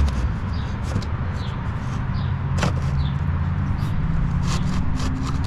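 Scattered clicks and light knocks of parts being handled on a zero-turn mower, over a steady low rumble.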